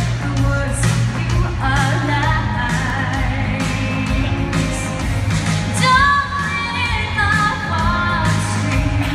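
A woman singing a pop-style song over instrumental accompaniment, with a steady low bass line under the melody.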